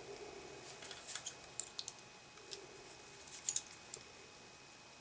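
Small, light clicks and ticks of a hand tool working at the metal contact parts of a disassembled headphone plug, prying a contact loose. The clicks come irregularly, with the loudest little cluster about three and a half seconds in.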